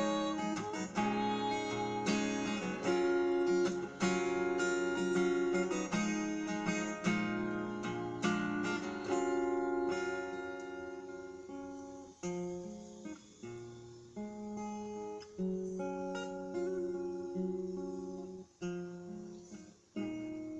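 Acoustic guitar strumming chords in an instrumental passage of a song, with no singing. About halfway through the playing gets quieter and breaks into separate strummed chords with short gaps between them.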